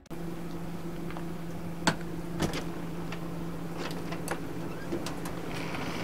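A steady low mechanical hum, with two sharp clicks about two seconds in.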